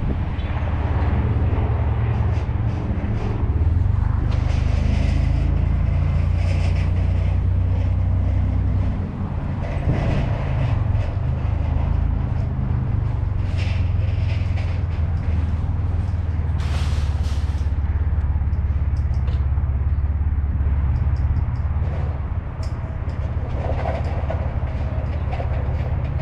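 Steady low rumble of a vehicle moving over asphalt, with road noise and short scattered bumps and rattles.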